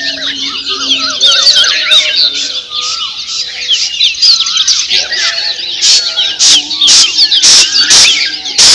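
Dawn chorus of many small songbirds chirping and whistling over one another in quick, overlapping phrases. From about six seconds in, loud harsh screeching calls cut in repeatedly, about one or two a second.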